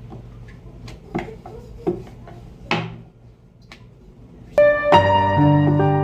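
A few scattered light knocks over a quiet stretch, then background piano music starts about four and a half seconds in.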